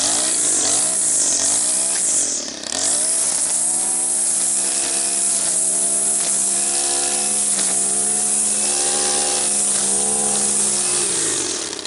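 Gas-powered string trimmer (weed eater) running at full throttle, its line cutting through thick, tall grass. The engine note dips briefly about two seconds in, holds steady, then drops off near the end as the throttle is let go.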